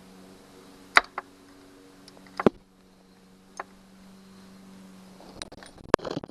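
Hand tools working at a rusted, broken screw stud: a handful of sharp, irregular metal clicks and taps, over a steady low hum that stops about five seconds in.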